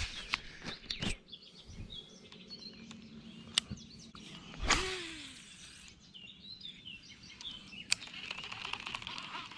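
Birds chirping in the dawn chorus, with a few sharp handling clicks and one louder brief bump about halfway through.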